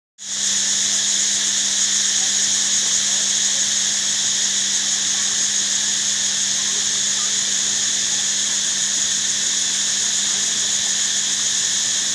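Steady, high-pitched buzzing chorus of insects in a tropical garden, unbroken throughout, over a low steady hum.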